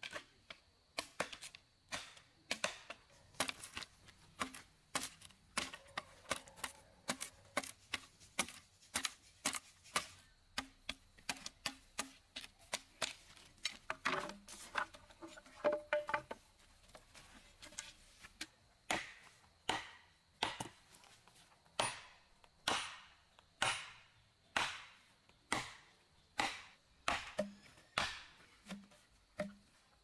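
Repeated sharp strikes of a blade chopping bamboo stakes: quick and irregular in the first half, then a steady stroke about once a second.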